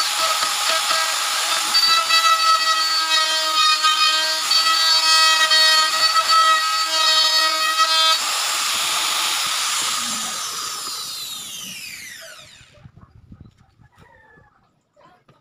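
Makita plunge router running at full speed as it cuts into a wooden cabinet door: a loud, high whine that wavers with the load. Lifted clear of the wood, it runs evenly for a couple of seconds, then is switched off and winds down in a falling whine. A few light knocks follow as it is set down.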